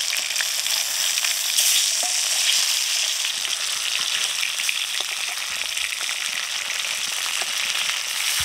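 Bhetki (barramundi) steaks sizzling steadily as they fry in hot mustard oil in a metal wok, with scattered small pops and crackles of spitting oil.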